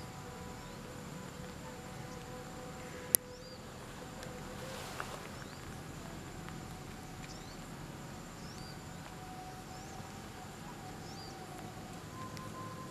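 Rural outdoor ambience: short high bird chirps every second or two over a faint steady insect hum, with one sharp click about three seconds in.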